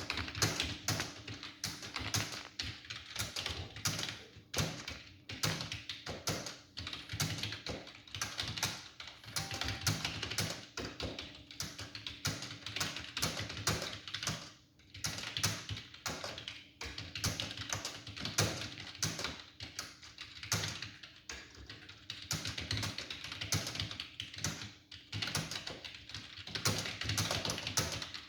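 Fast, continuous typing on a computer keyboard: a dense run of key clicks, several a second, at a pace of about 93 words a minute.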